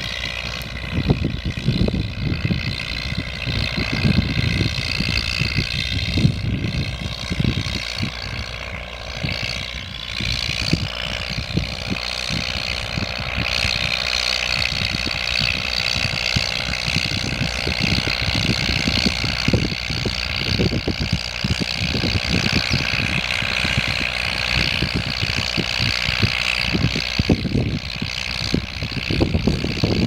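Leyland 462 tractor's four-cylinder diesel engine running steadily under load while ploughing, with irregular low rumbles and thumps over it.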